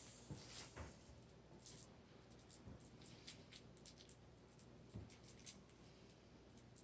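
Very faint clicks and a few soft taps and pats of hands shaping crab-cake patties, near silence otherwise.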